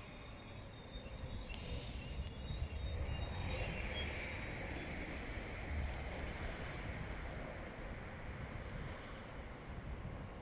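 Push-pull passenger train with a Traxx electric locomotive, led by its driving trailer, rolling along the station track with a low rumble of wheels on rails. The rumble swells about two seconds in, is loudest for a few seconds, then eases as the train slows, with a few faint high squeals early on.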